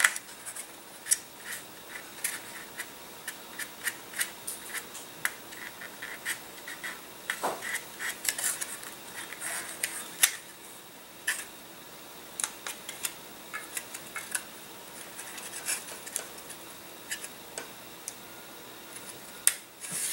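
Scattered light clicks, taps and rubbing of thin wooden kit parts being handled and pressed together by hand.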